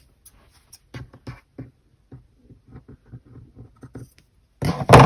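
Fabric scissors snipping through cloth in a run of short, sharp cuts, with a louder burst of handling noise near the end.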